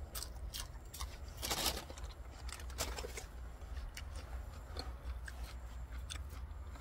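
A man chewing a mouthful of fresh rice paddy herb (phak kayaeng) leaves close to the microphone: a string of small, crisp, wet clicks, with a denser run about one and a half seconds in.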